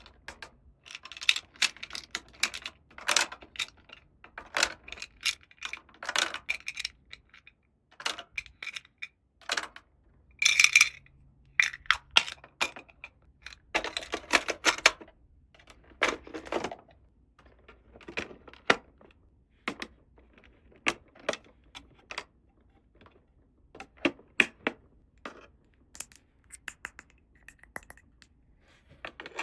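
Small plastic toy pieces being handled, clicked together and set down: a busy run of light irregular clicks and taps, with a few brief rustles of packaging.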